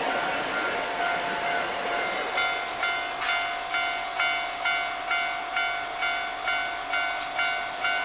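Railway level-crossing alarm ringing a steady repeating bell-like tone, about two strikes a second. The running noise of a Hankyu 1300-series electric train fades away under it over the first couple of seconds. A few short high chirps sound now and then.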